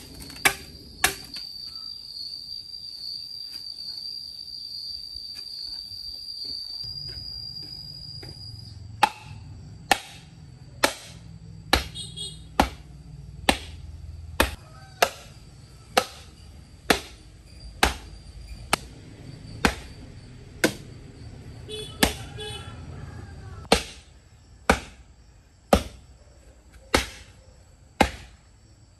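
Knife chopping on a cutting board in single, evenly spaced strokes about once a second, with a pause of several seconds near the start. A cricket chirps steadily through the first third.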